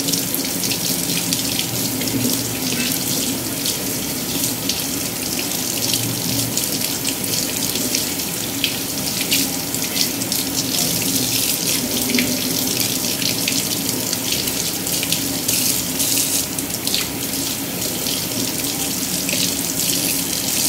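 Kitchen tap running steadily into a sink with splashing, as raw chicken thighs are washed under it.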